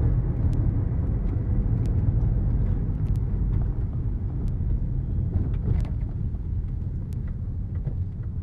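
Steady low rumble of a car on the road, heard from inside the cabin, with a few faint light ticks.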